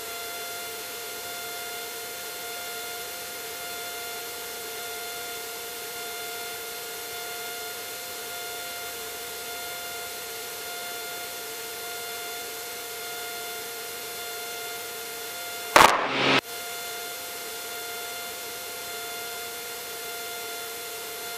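Steady drone of a single-engine Cessna's piston engine and propeller at constant power, heard in the cockpit. A brief loud burst cuts in about sixteen seconds in.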